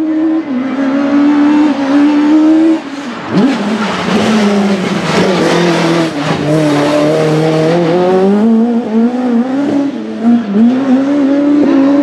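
Alfa Romeo MiTo RX Super 1600 rallycross car's naturally aspirated four-cylinder engine, loud and revving under hard driving. The note drops sharply about three seconds in, sinks for several seconds, then climbs and falls again with throttle and gear changes. Tyres squeal in the middle as the car slides.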